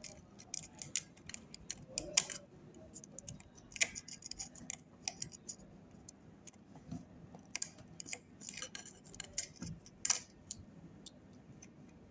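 Hobby-knife blade scraping and picking at hardened glue on a power-supply circuit board: irregular small scratches and sharp clicks of metal on hard glue, the loudest about two seconds in and near ten seconds.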